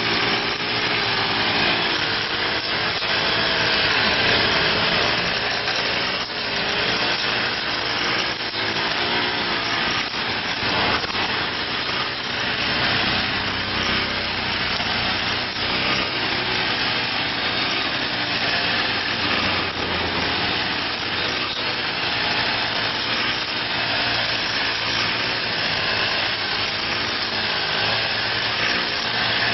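Handheld brush cutter's small engine running continuously while its cutting head trims grass, the engine note wavering slightly as the load changes.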